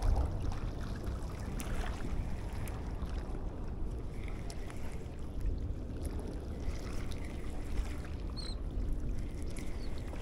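Wind on the microphone and water moving at the shoreline: a steady, low, even noise.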